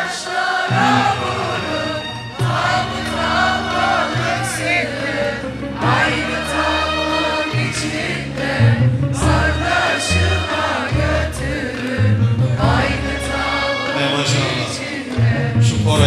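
Live Turkish arabesk band music between sung lines of a song: a wavering melody over strong bass notes, with scattered drum hits.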